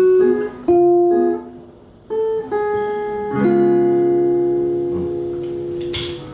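Harmonica in a neck rack with acoustic guitar: a few short held notes with gaps between them, then a chord that is held for about two and a half seconds and slowly fades. A brief rustle near the end.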